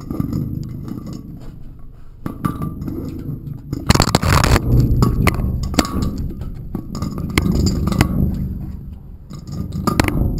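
Handling noise of a camera pressed against a rough surface: rumbling with scattered clicks, clinks and scrapes, and a dense burst of knocking and scraping about four seconds in.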